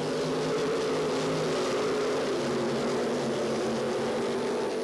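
IMCA stock cars' V8 engines running at speed together, a steady, even drone of several engines at once.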